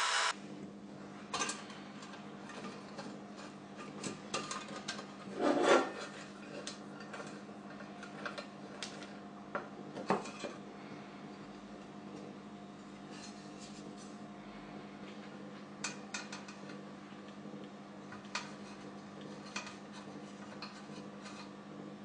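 An electric drill cuts off at the very start, then small metal parts are handled: scattered light clicks, clinks and scrapes over a faint steady hum, the loudest a longer scrape about five to six seconds in.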